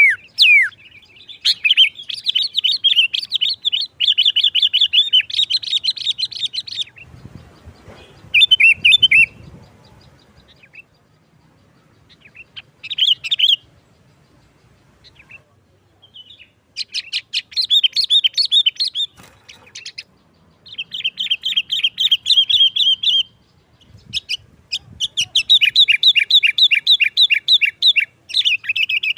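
Sooty-headed bulbul singing in several long bouts of fast, chattering notes, with short pauses between bouts.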